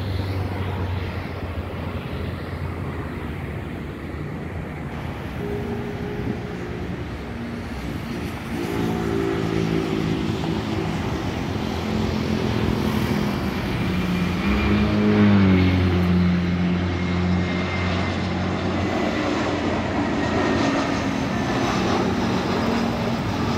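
Airbus A321 jet airliner's twin engines on final approach with gear down, growing louder as it passes low overhead and loudest a little past halfway. After the pass a thin whine slides down in pitch as the aircraft moves away.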